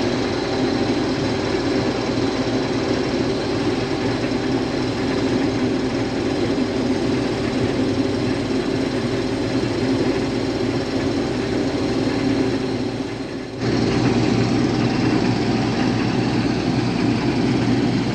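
Case IH combine running while cutting wheat: a steady engine and threshing-machinery drone. Near the end the sound changes abruptly and gets a little louder and fuller.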